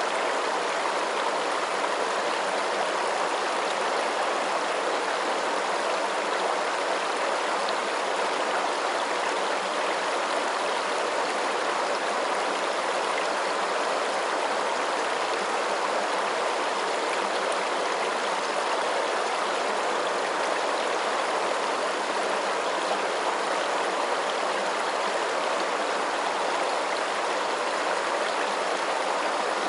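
Running water rushing steadily, an even hiss with no breaks or changes.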